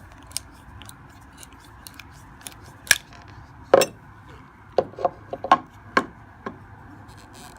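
Brass thru-hull tube being cut to length with a cutting wheel: irregular sharp metallic clicks and scrapes, bunched together from about three seconds in, over a faint steady hum.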